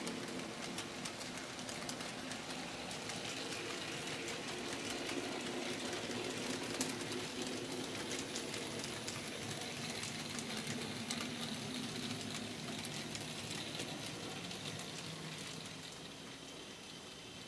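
N scale model freight train running past on the layout's track: a steady rattle of many small clicks from the wagons' wheels over the rails and points, over a low hum. It fades near the end as the train moves away.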